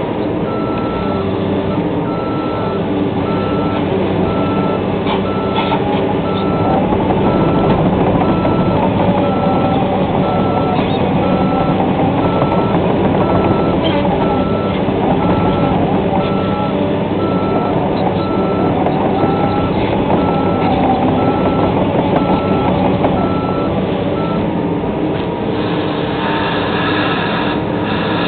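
Excavator's diesel engine running with its travel alarm beeping steadily, a single high tone repeated at an even pace, which stops near the end. Beneath it, a whine rises and falls.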